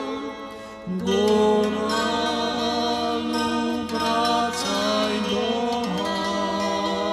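Slow folk-song arrangement for zither, violin and piano, with long held notes that waver with vibrato; a new held note swells in about a second in.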